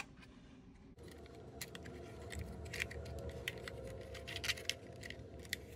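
Faint, scattered small plastic clicks and taps from a DJI Mini 4 Pro drone being handled while its battery is removed, over a low steady hum that starts about a second in.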